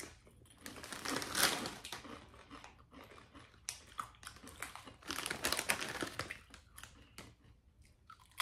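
Crisp corn tortilla chips crunching as they are bitten and chewed, with the chip bag crinkling as hands reach into it, in irregular bursts throughout.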